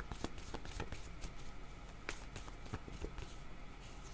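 A deck of oracle cards shuffled by hand, a quick, irregular run of soft card clicks.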